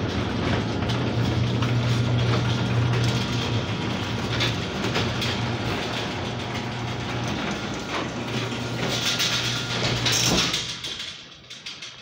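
Chamberlain WD832KEVG garage door opener running as it lowers the sectional door: a steady motor hum with a mechanical clatter, stopping about ten and a half seconds in as the door comes to rest.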